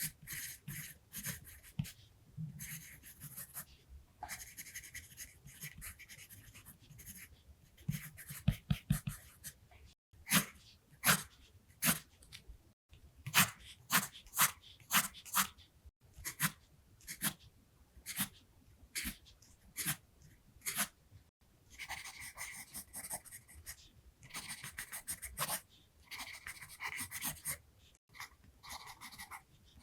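Pencil writing on paper: runs of scratchy strokes, with a middle stretch of short, sharp strokes about two a second before longer scratching resumes.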